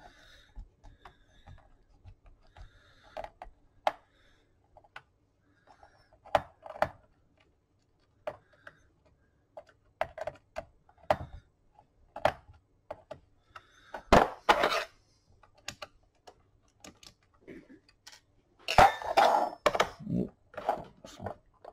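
Small screwdriver clicking and scraping against a screw and the plastic base of a laptop, with scattered taps and knocks as the case is handled. Louder clusters of clatter come about fourteen seconds in and again near the end.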